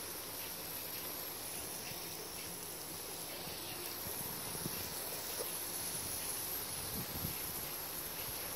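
Garden hose spray hissing steadily, with a high, wavering insect drone above it. A few faint taps come around the middle and near the end.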